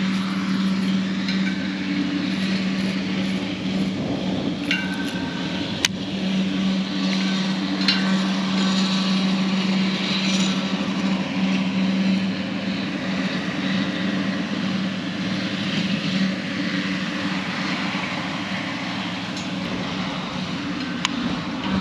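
A steady motor drone with a constant low hum, over a wash of wind noise, with a few faint sharp clicks.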